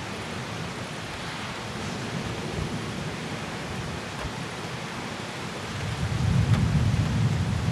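Steady rain from a severe thunderstorm, with a low rumble of thunder swelling up about six seconds in and getting louder.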